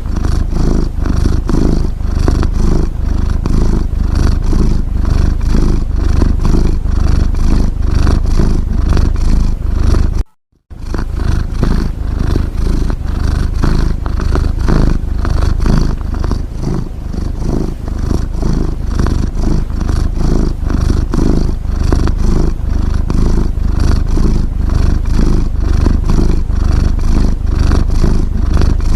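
Cat snoring: a steady, loud, low rumble made of rapid fine pulses that goes on without a break, except that it cuts out for a moment about ten seconds in.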